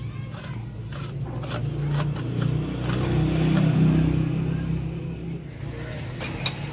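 A motor vehicle's engine passing by: a low drone that swells to its loudest about four seconds in and then fades away.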